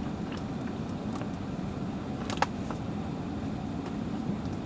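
Steady low rumble of an airliner cabin, with one sharp click about halfway through.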